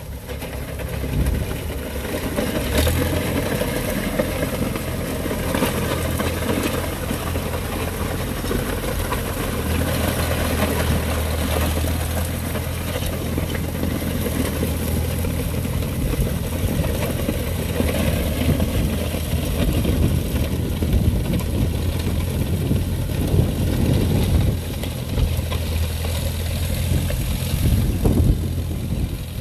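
1953 Farmall tractor engine running steadily while the tractor pulls a rear grading blade along a gravel driveway.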